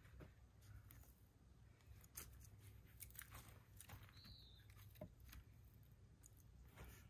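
Faint, scattered knocks and scrapes of split firewood pieces being set onto a woodpile, about one every second. One short high falling chirp about four seconds in.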